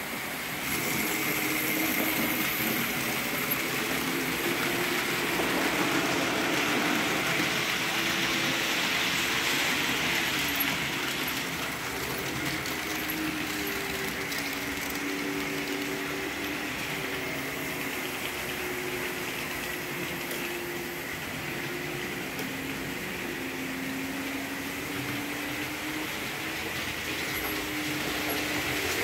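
Märklin model trains running on the layout's track: a steady rushing of wheels on rails with the humming of the locomotive motors, whose pitch wavers and shifts as they run.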